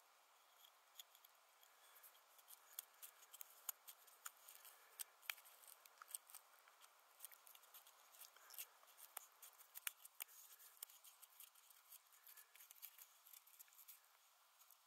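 Faint, irregular scratching and clicking of a thin pointed tool digging the soft pith out of the end of a hollow wooden handle.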